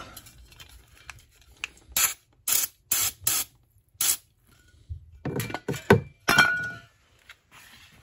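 Aerosol cleaner sprayed in five short hissing bursts onto a sump pump's switch housing, about two to four seconds in. Then a run of knocks and scrapes from handling things, the loudest a sharp knock about six seconds in.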